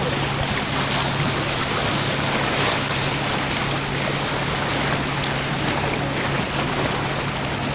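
Sea waves washing and splashing over shoreline rocks, with a steady low hum underneath.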